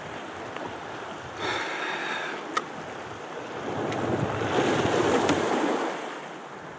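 Sea water sloshing and splashing around a kayak, with wind on the microphone. About a second and a half in there is a brief whirr followed by a sharp click, and the splashing swells louder for a couple of seconds past the middle.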